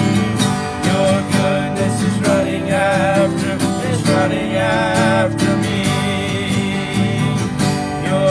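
Worship song played on acoustic guitar with a voice singing, holding long notes with vibrato.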